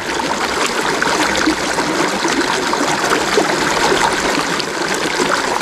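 Shallow, rocky stream running over and between stones: a steady rush and babble of water.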